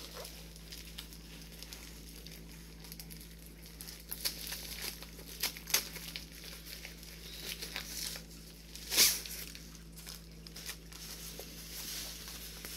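Clear plastic wrapping crinkling and tearing as a rolled diamond painting canvas is unwrapped and unrolled, in irregular crackles that pick up about four seconds in, with one loudest burst about nine seconds in.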